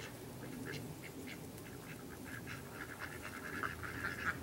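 A flock of ducks quacking, a string of short quacks that grows busier near the end.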